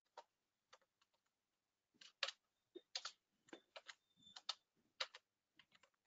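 Computer keyboard keystrokes, faint and irregular, as text is typed, a few at the start and a denser run from about two seconds in.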